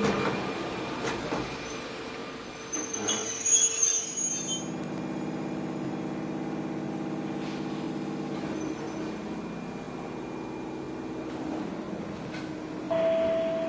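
Hokuriku Railway 8800 series EMU (ex-Keio 3000 series) running over a bridge, with a high wheel squeal about three seconds in. Then, inside the car as it stands at a station, its electrical equipment hums steadily.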